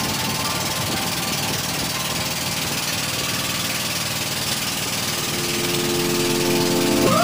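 Outrigger boat's engine running steadily under way, with the rush of water along the hull.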